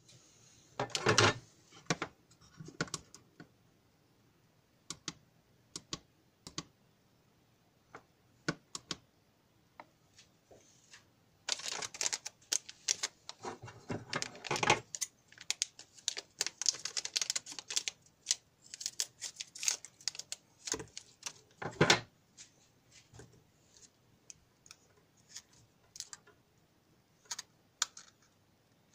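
Irregular clicks, taps and rustles of small circuit boards and alligator-clip leads being handled and set down on paper, busiest through the middle stretch.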